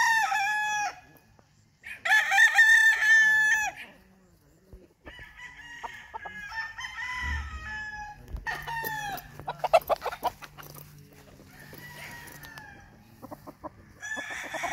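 Gamefowl roosters crowing: one crow trailing off just after the start, then a loud full crow about two seconds in. Quieter clucks and calls follow, and another crow begins near the end.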